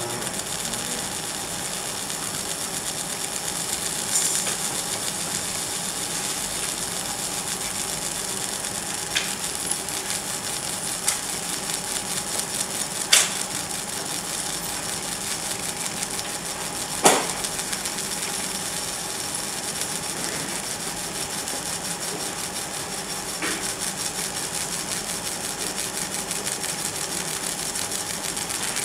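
Laser marking machine engraving stainless steel: a steady buzzing hiss with a rapid fine crackle as the beam works the metal, over a machine hum with a couple of faint steady tones. A few sharp clicks come through, two louder ones near the middle.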